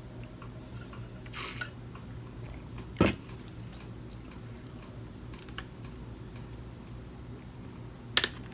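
Close-up chewing of sushi with a low steady hum behind it. There is a brief rustle a little over a second in, and two sharp clicks: one about three seconds in and one near the end.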